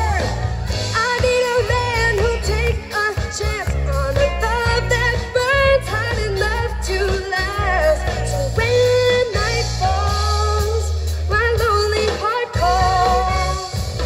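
Live band performing a pop song: a young woman singing lead over electric guitar and drums, with a steady bass line underneath.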